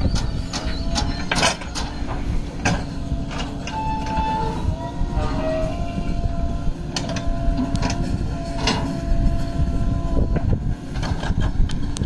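Diesel engines of a JCB 3DX backhoe loader and nearby tractors running steadily, with several sharp knocks and thuds as the bucket works and soil drops into a tractor trolley. A thin steady tone sounds for a few seconds in the middle.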